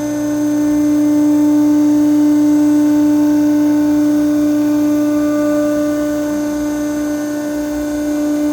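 Hydraulic power unit of an International Baler LC-72 cardboard baler running, its electric motor and pump giving a loud, steady, one-pitch whine that rises a little about a second in.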